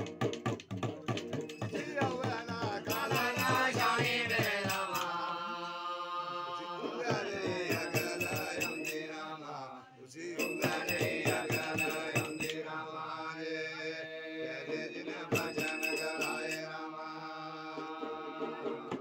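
Men chanting a Dogri masada folk ballad, accompanied by a long-necked string instrument and a small hand-held frame drum keeping a steady beat, with short spells of jingling bells.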